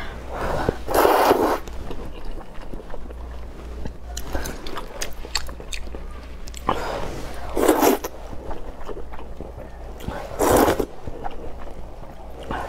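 Rice noodles of luosifen slurped up in three loud pulls, about 1, 8 and 10.5 seconds in, with chewing and small wet mouth clicks in between.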